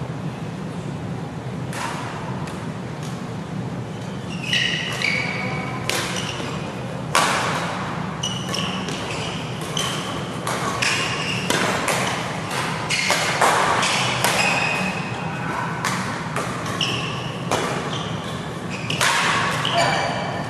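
Badminton doubles rally: rackets striking a shuttlecock again and again, mixed with short squeaks of court shoes on the mat floor, echoing in a large sports hall, over a steady low hum.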